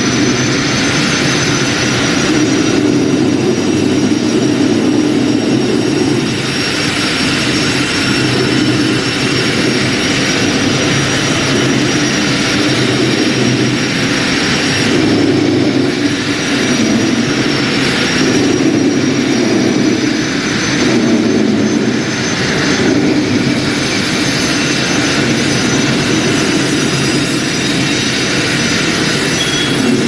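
Traditional single-head concrete floor grinder, driven by an electric motor, grinding dry over rough concrete: a loud, steady grinding noise with a high whine held throughout. The lower grinding sound swells and eases as the head is pushed across the surface.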